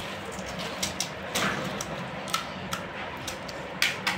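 Scattered light clicks and clinks from eating golgappe off steel tableware: steel spoons and bowls knocking together and crisp puris being cracked open, about eight irregular ticks over a steady low hum.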